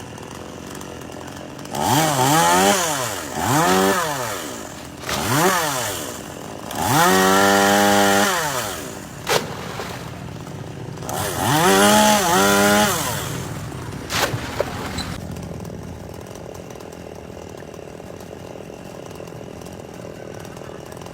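Chainsaw revved up and down about five times, its pitch rising and falling with each throttle blip, and held high once for about a second and a half. Two sharp knocks fall between the revs, and the saw drops away about 15 seconds in.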